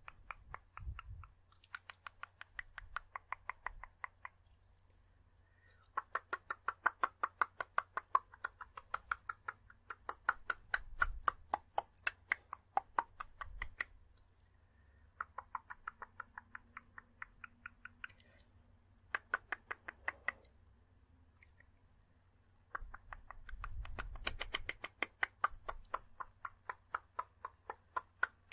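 Rapid tongue clicking close into the microphone: runs of sharp clicks, several a second, each run lasting a few seconds with short pauses between.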